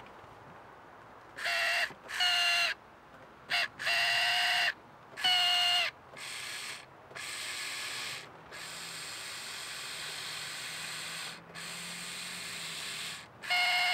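Porsche 944 power side-mirror adjustment motor running in short stop-start runs as the mirror is tested. A high-pitched whine comes in about six brief bursts, then quieter, longer runs follow, and a loud run starts again near the end. The motor works, and it has always been loud.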